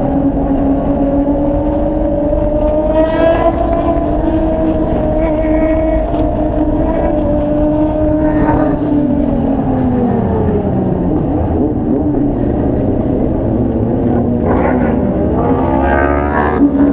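Kawasaki Ninja sportbike engine running under way, holding a steady note, dropping in pitch as the throttle eases off about two thirds of the way through, then climbing again near the end. Short revs from other sportbikes in the group come through a few times.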